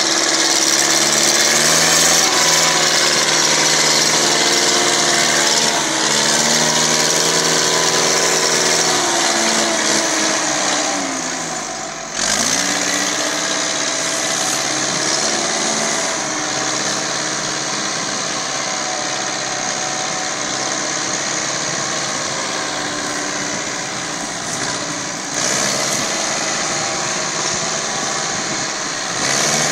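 Massey Ferguson tractor's diesel engine labouring under a heavily loaded sugarcane trolley. The engine note sags, sinks lowest about twelve seconds in, then the revs pick up sharply, with another step up in level near the end.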